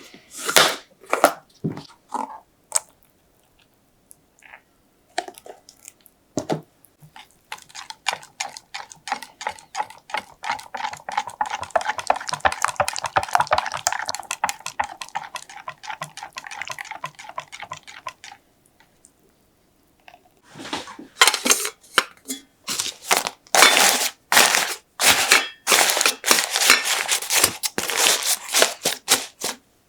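A utensil beating and stirring cheesecake batter in a bowl: a few separate knocks, then a fast, even run of strokes for about ten seconds, and near the end a louder run of clattering strokes against the bowl.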